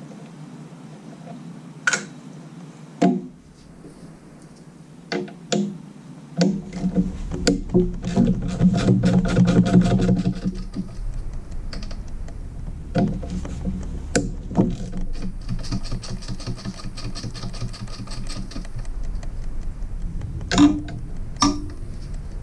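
Hand ratchet clicking in quick runs as the main bearing brace fasteners are backed off a Jeep 4.0 inline-six engine block, with single sharp clicks between the runs. A low steady hum comes in about six seconds in.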